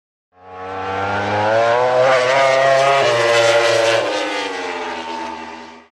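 Intro sound effect: a steady, engine-like drone that swells up within about a second, holds, then sinks slightly in pitch and fades out near the end.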